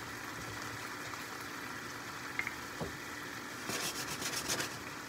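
Sliced mushrooms sizzling and simmering in beef broth in a frying pan: a steady faint hiss, with a short run of crackling spatters about four seconds in.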